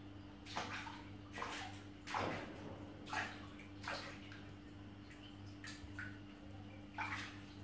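Water splashing lightly in a plastic baby bathtub as small hands paddle in it: a string of short, soft splashes, about eight, spaced unevenly.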